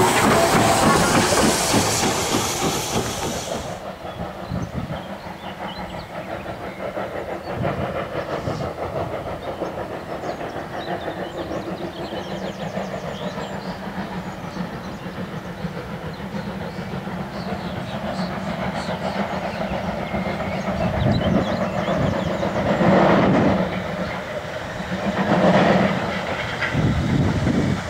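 Steam tank locomotive 30053 going away: a loud hiss of steam for the first few seconds cuts off about four seconds in, then the train's rumble and faint rail clatter carry on in the distance. Near the end come two louder gusts.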